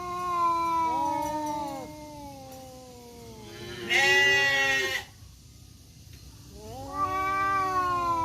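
Two tomcats yowling at each other in a territorial standoff, with long drawn-out caterwauls. Two voices overlap at first, a louder, shriller wail comes about four seconds in, and another long low yowl starts near the end.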